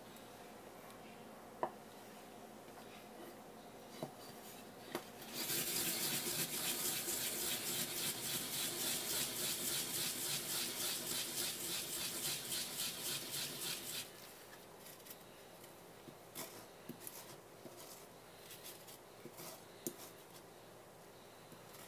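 Fresh wasabi root being rubbed in circles on a sharkskin grater: a loud, fast, rhythmic rasping that runs for about eight seconds, then gives way to a few light scrapes and ticks. A few sharp light knocks come before the grating starts.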